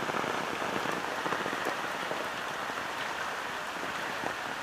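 Heavy rain falling steadily: an even hiss of many small drop patters.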